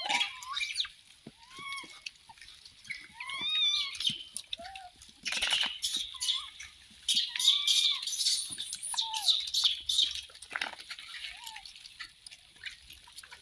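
Troop of rhesus macaques: short rising-and-falling calls repeat every second or so, with bursts of rustling and scuffling about five seconds in and again around seven to eight seconds in.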